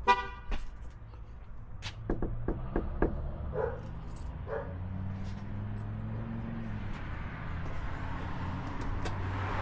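A dog barks once sharply, then twice more a few seconds later, among scattered knocks and clicks. A low steady hum comes in about halfway through.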